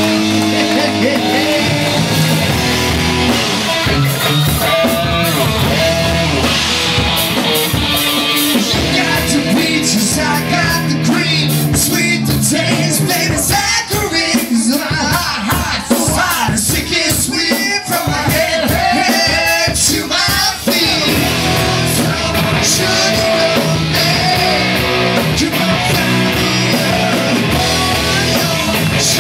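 Live rock band playing loud: electric guitar, electric bass and drum kit, with a male lead singer. The drumming gets busier with dense hits through the middle, then the full band and vocals carry on.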